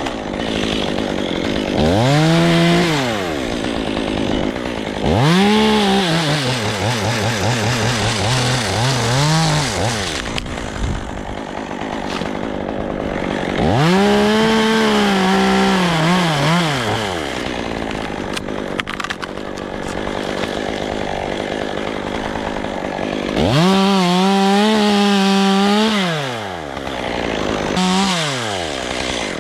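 Two-stroke chainsaw being throttled up and down, about six times: the engine climbs to full speed, holds for a second or two, then falls back to idle.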